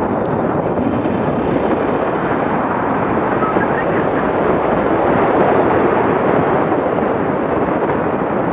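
A motorcycle riding at speed: steady wind rush over the camera microphone, with the motorcycle's running and road noise underneath, swelling a little about halfway through.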